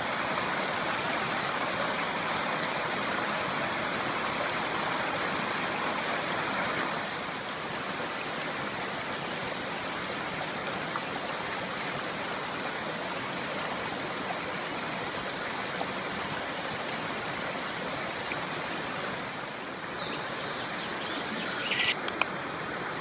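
Clear river water flowing steadily, a constant rushing noise that drops a little in level after about seven seconds. Near the end a bird gives a short call over the water.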